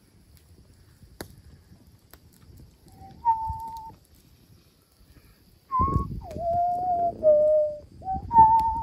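A person whistling a tune in clear held notes: a brief two-note phrase about three seconds in, then a longer phrase of several notes stepping up and down from about six seconds on.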